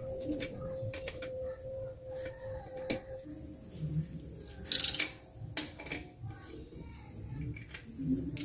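Socket wrench turning the priming plug on a Sanyo jet water pump: a run of small ratchet clicks and metal ticks, with a louder metallic clink about halfway through and another near the end. A faint steady hum stops about three seconds in.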